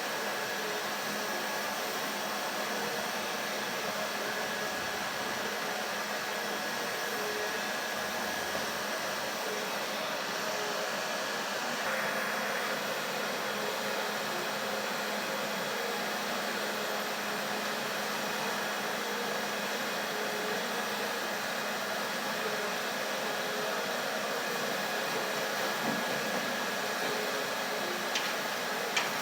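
Coal-and-coke blacksmith forge burning under forced air, a steady rushing hiss from the blower and fire. A few light ticks near the end.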